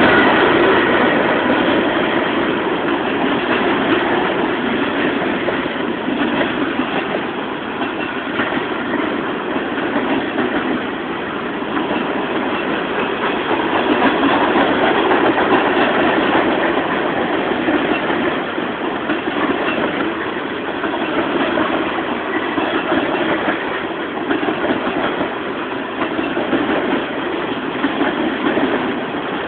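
Freight train cars (hoppers, tank cars and boxcars) rolling steadily past at close range: a continuous, even noise of steel wheels running on the rails.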